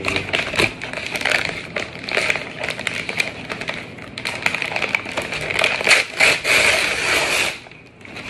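Brown paper courier bag crinkling and crackling as it is handled and pulled open by hand, a dense run of rustles and sharp crackles that stops abruptly shortly before the end.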